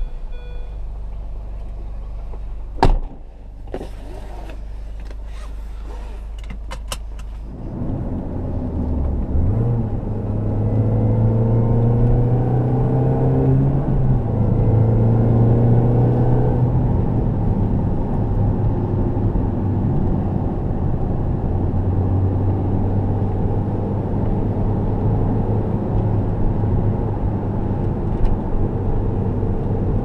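In-cabin sound of a 2005 Mini Cooper S (R53) and its supercharged 1.6-litre four-cylinder: the engine idles, with a sharp click about three seconds in and a few lighter clicks after. It then pulls away under load, its note climbing in pitch, dipping at a gear change, climbing again and settling into a steady cruise.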